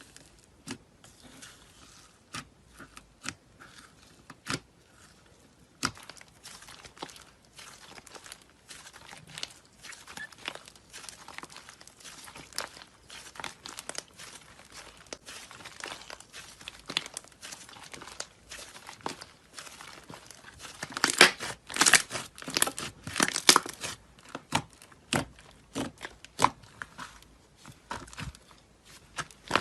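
Hands squishing and stretching slime, giving sticky crackles and pops. They are sparse at first, then come thick and fast, loudest in a dense run about three-quarters of the way through.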